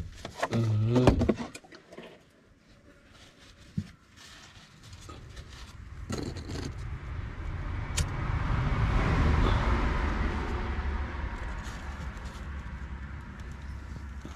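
A motor vehicle passing close by: engine and road noise swell slowly to loudest about nine seconds in, then fade. A short loud pitched sound comes near the start, and a sharp click comes about eight seconds in as a lighter is struck.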